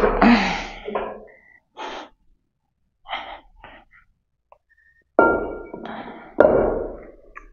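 Metal weight plates being shifted on a floor stack: a few light knocks, then two loud clanks about five and six and a half seconds in, each with a short ring that dies away.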